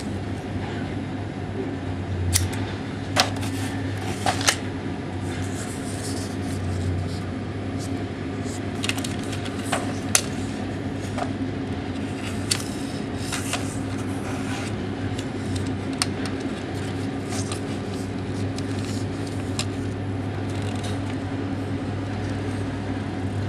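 Hand-held clothing tag gun being worked and handled: scattered sharp plastic clicks and snaps at irregular intervals, over a steady low hum.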